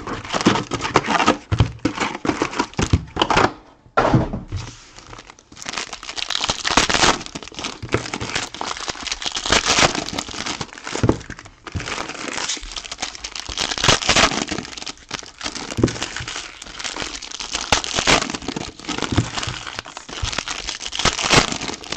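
Plastic wrapping on a box of trading cards being crinkled and torn open, with irregular crackling and rustling and a short pause a few seconds in.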